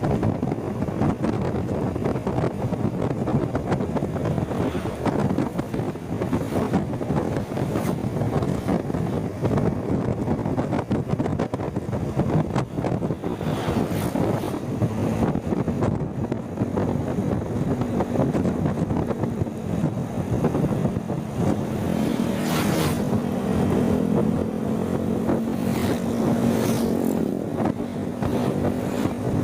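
Wind and road noise on a motorcycle rider's microphone, with traffic and engines drowning everything else out. A steady engine hum comes in about two-thirds of the way through, and a few brief swishes break through the rumble.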